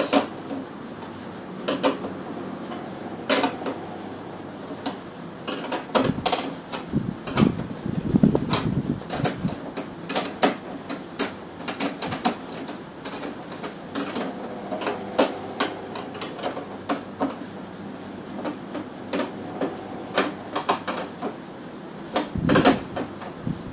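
Small metal spanner tightening nuts on slotted steel angle plates bolted to the back of a TV: irregular sharp metallic clicks and clinks, some in quick runs.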